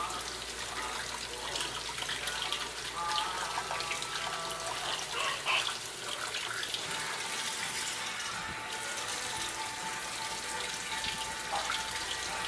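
Water running steadily from a tap into a sink, with a faint thin tone or two over it.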